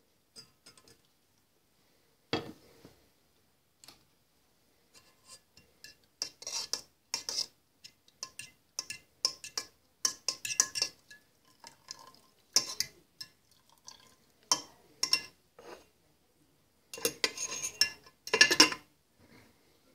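Metal utensil stirring and clinking irregularly against the inside of a ceramic teapot, with a single knock about two seconds in. Near the end a louder clatter as the ceramic lid is set back on the pot.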